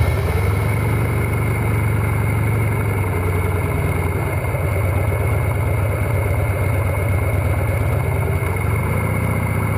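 Motorcycle engine running steadily as the bike cruises at low speed.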